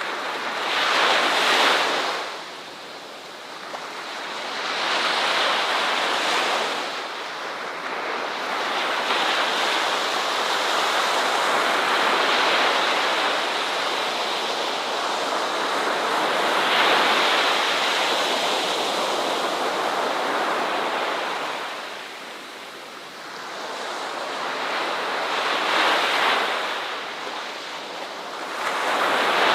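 Ocean waves breaking and washing up the shore. The surf swells and ebbs every few seconds, with one long sustained wash through the middle.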